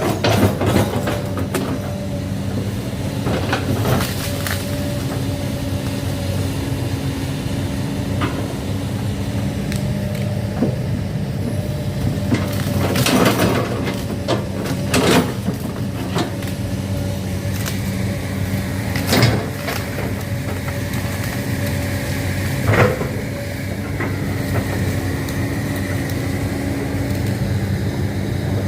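Komatsu PC200-8 excavator's diesel engine running steadily, with about half a dozen sharp knocks and clanks a few seconds apart as the machine works. A faint high whine comes in during the second half.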